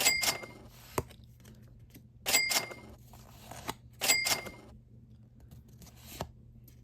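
Trading cards being slid one behind another in the hands, three short papery swishes about two seconds apart, with a light tap or two in between.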